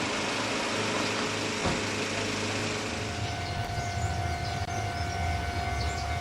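Train running on the Kotoden Shido Line: a steady low rumble, joined about halfway by a steady high tone that holds on.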